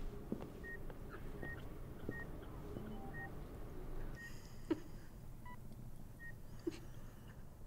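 Hospital patient monitor beeping faintly: a series of short high beeps, about one every three-quarters of a second, with a couple of soft knocks in between.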